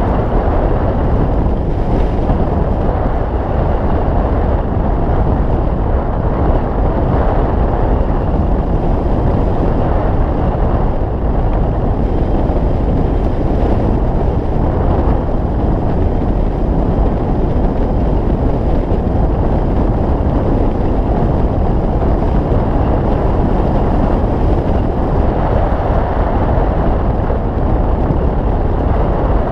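Wind rushing over the microphone of a camera mounted on a hang glider in flight: a steady, loud, deep rush of airflow with no breaks.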